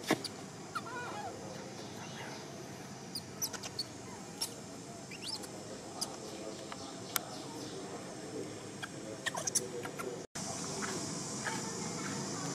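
Outdoor ambience with scattered short, high-pitched animal chirps and squeaks, some rising in pitch, and a few sharp clicks.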